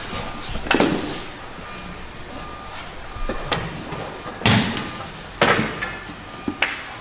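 Aikido breakfalls: a body thrown with a jo staff hitting the training mat with heavy thuds and slaps, once about a second in and again in a cluster from about four and a half to five and a half seconds, with a smaller knock near the end.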